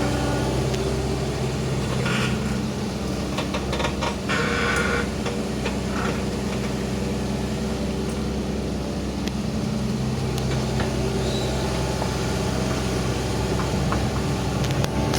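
Hitachi Zaxis 120 excavator's diesel engine running steadily, with a few brief knocks and scrapes a few seconds in.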